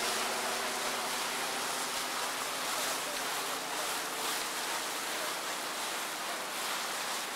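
Single-engine floatplane's engine and propeller droning overhead, fading as the plane flies off, under a steady rushing noise.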